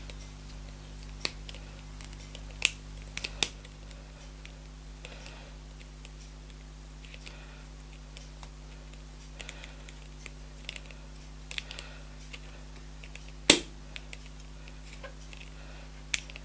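Scattered small metallic clicks and ticks of small precision pliers gripping and turning a loose nut on a rimless glasses' temple hinge to tighten it, the loudest click about two-thirds through, over a steady low hum.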